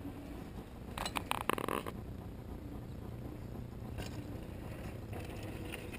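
Outdoor ambience with wind rumbling on the microphone, broken about a second in by a brief cluster of sharp clicks and a short tone.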